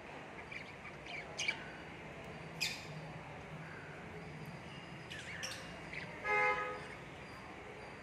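Budgerigars chirping: a few short, sharp chirps, then a louder call of about half a second near the end.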